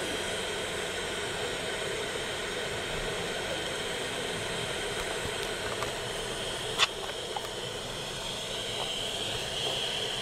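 Steady background hiss with a faint, steady high tone that grows stronger near the end. A single sharp click comes about two-thirds of the way through.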